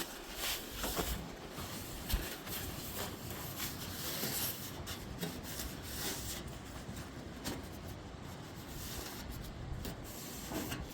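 Irregular rubbing and scraping strokes over the rusty metal pan of a refrigerator.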